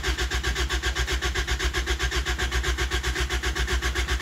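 Starter cranking a turbocharged Toyota 1ZZ four-cylinder engine that does not fire, with an even, rapid chug. The engine is being turned over to prime the oil system and build oil pressure.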